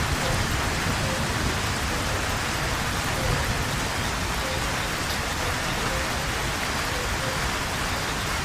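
Steady heavy rain falling and pattering on surfaces, an even, unbroken hiss.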